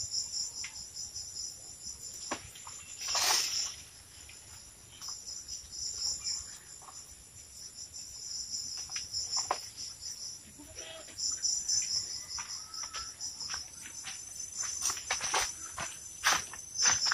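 Insects chirring steadily in a high, continuous chorus, with scattered clicks and rustles and a longer rustle about three seconds in.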